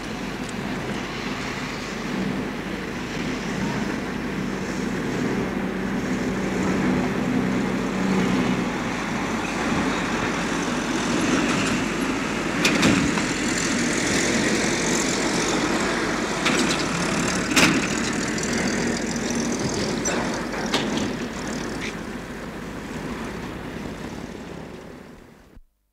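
City street traffic recorded on tape: a steady wash of passing vehicles, with a vehicle engine's hum strongest in the first third and two sharp knocks near the middle. The sound fades out and stops abruptly just before the end.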